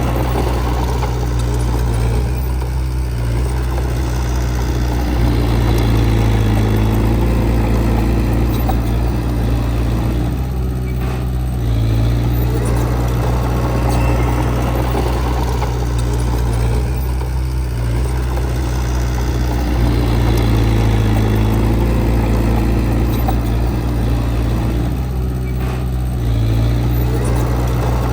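Heavy diesel engine of earthmoving machinery running steadily, its note shifting in a repeating cycle about every seven to eight seconds.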